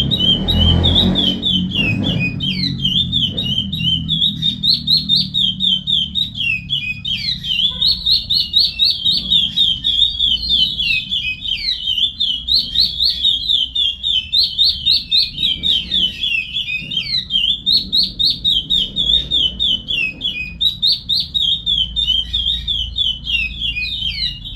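Curió (chestnut-bellied seed finch) singing the Paracambi song type: long runs of quick whistled notes with brief pauses. There is a low thump about a second in.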